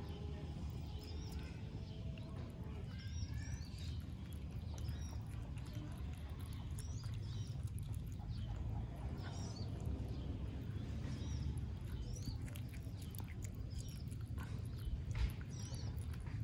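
Baby otter chewing and crunching raw catfish, with faint clicks. Short high chirps repeat about once a second over a steady low rumble.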